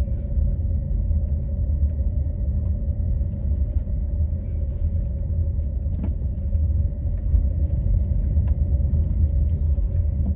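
Steady low rumble of a car driving, engine and road noise heard from inside the cabin, with a faint constant hum and a few light clicks.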